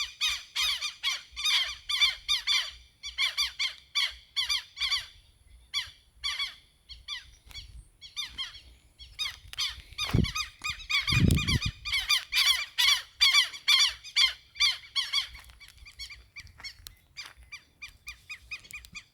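Rapid series of high, squeaky chirping calls from animals, coming in bursts several times a second, with a brief low thump about ten seconds in.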